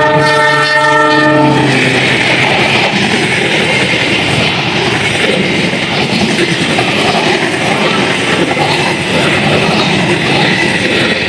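Argo Parahyangan passenger train passing at speed. Its locomotive horn sounds a chord that stops about one and a half seconds in, followed by the loud, steady rush and rattle of the carriages going by.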